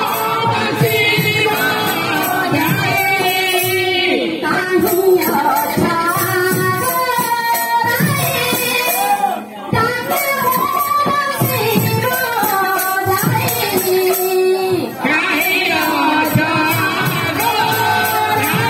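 Odia kirtan: voices singing a devotional melody, accompanied by a two-headed khol drum and jingling cymbals.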